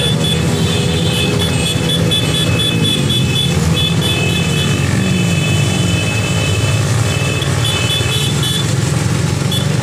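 Small motorcycle engines of a slow-moving convoy running together, their pitch rising and falling as riders open and close the throttle, with a thin high steady tone coming and going above them.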